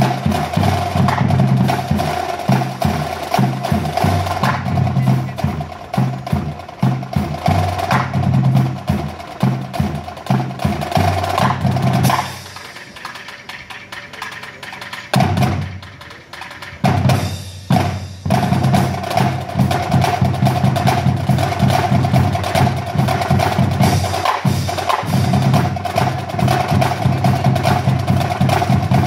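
Marching band drumline of snare and bass drums playing a fast, driving cadence, with a steady held tone above the drums. The drumming drops away for a few seconds about twelve seconds in, then comes back in full.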